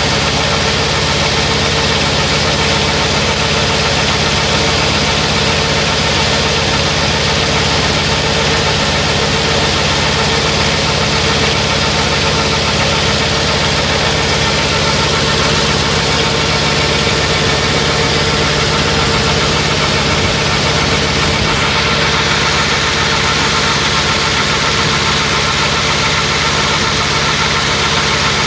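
Milking-system vacuum pump running steadily, pulling air through the clusters and milk pipeline to dry them out after washing.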